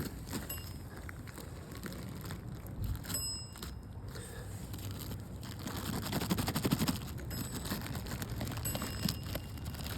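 Rotary phone's bell ringing weakly and muffled, a fast metallic rattle with short high tinny tones around 3 s in and again near the end.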